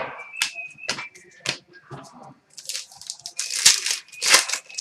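Trading cards and plastic card sleeves being handled: a string of sharp clicks and papery, plastic rustling, with two louder rustles near the end. A faint high whistled tone sounds at the start and again in the second half.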